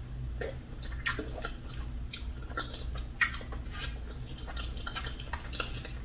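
A person chewing a mouthful of soft fufu dipped in okra soup, a run of irregular mouth clicks and smacks.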